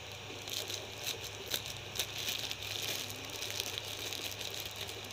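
Thin clear plastic sleeve crinkling and rustling as it is handled, with scattered small crackles and clicks.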